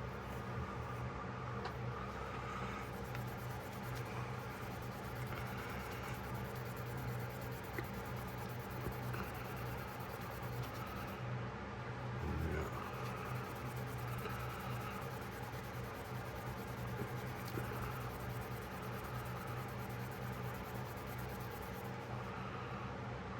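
Soft repeated rubbing strokes of Nevr-Dull polishing wadding on a pocketknife's metal, over a steady low hum.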